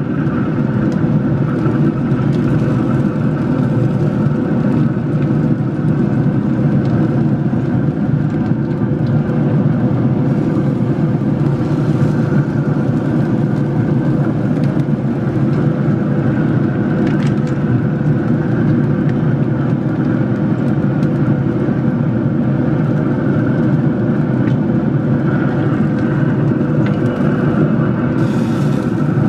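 A steady mechanical drone: a low rumble with several constant tones over it, unchanging throughout, like a motor or fan running.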